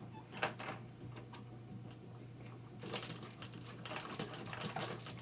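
Plastic clicking and rattling from a baby's activity jumper as the baby bounces and plays in it: a few separate clicks about half a second in, then a quick, busy run of clicks from a little past the middle.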